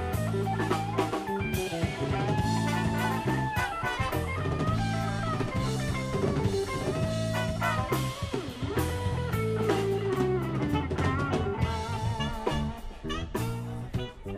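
Live funk fusion band playing: drum kit and electric bass keeping a steady groove, with electric guitar and trumpet carrying melodic lines.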